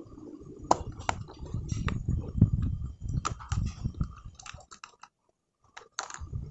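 Hands handling a clear plastic storage container and rummaging through the erasers and pencil sharpeners inside it: scattered plastic clicks and clatters over rubbing handling noise, with a short break about five seconds in.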